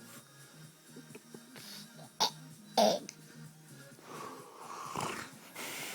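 A sleeping man snoring irregularly, with two short loud snorts about two and three seconds in and a longer drawn breath near the end, over a steady low hum.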